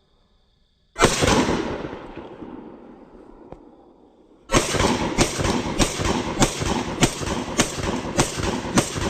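Firecrackers going off: a sudden loud bang about a second in that dies away over a few seconds, then from about halfway a dense crackling with sharper pops a little under twice a second.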